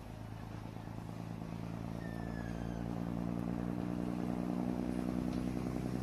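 Diesel railbus engine running as the railbus approaches, growing steadily louder as it nears.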